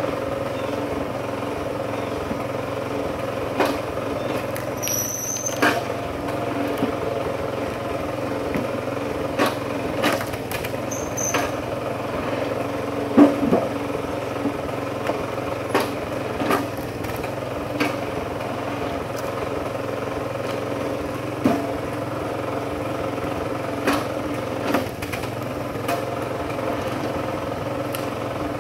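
Kinetic HD Super Splitter's small gas engine running steadily, with scattered knocks and clunks of split firewood being handled and tossed onto the table and pile. One louder knock comes about halfway through.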